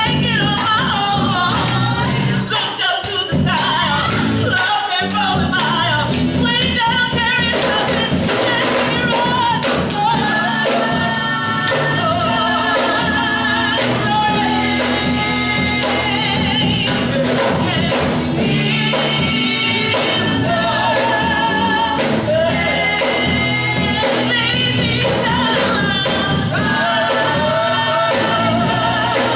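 Gospel song performed with sung voices, several singing together in harmony, over a band.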